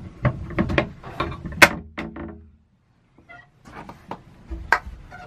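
A string of irregular sharp knocks and clicks, the loudest about a second and a half in and another near the end, with a brief dead gap just past halfway.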